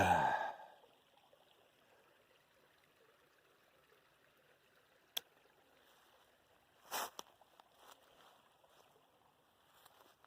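A short voiced sigh right at the start, then sparse crunches and rustles of a hiker's steps in dry leaves and twigs: one sharp snap about five seconds in, a louder rustle about two seconds later, and a few light crackles near the end.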